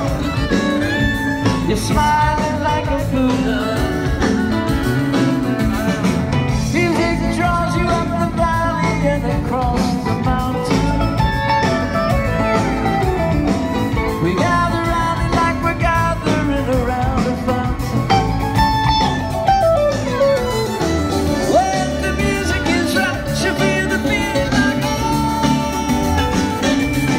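Live band music in an instrumental passage: acoustic guitars, fiddle, upright bass and drums playing together, with lead lines that bend and slide in pitch.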